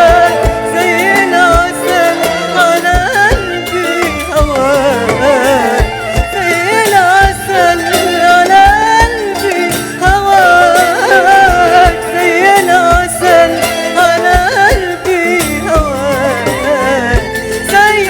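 Middle Eastern popular music: a wavering, ornamented melody line over a steady drum beat.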